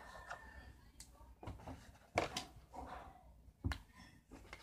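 Paper and small objects being handled on a table: rustling with a few sharp knocks, the loudest about two seconds in and another shortly before the end.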